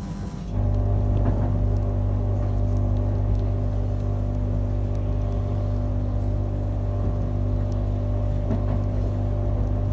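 Passenger train running, heard from on board: a steady low hum and rumble with a few held tones. It starts suddenly about half a second in.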